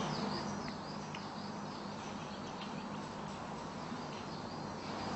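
Faint, repeated high chirps, most likely from birds or insects, over a steady background hiss and a low hum.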